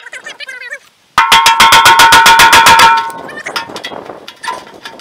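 A burst of rapid metallic hammering from a power impact tool, about ten blows a second for roughly two seconds, with a ringing metal tone, as it works on a seized fitting in the tractor's sediment-bowl port. Softer metallic clatter follows.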